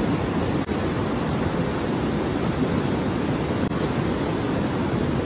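Steady rush of a swollen river in flood, its fast brown water churning past the bank.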